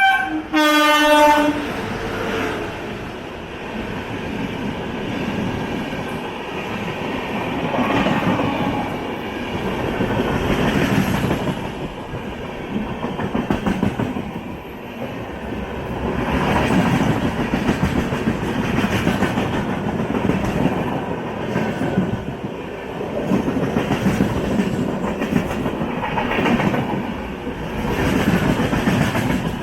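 Train horn sounding once for about a second and a half, then the rumble and clickety-clack of a train running on the rails, swelling and fading in waves.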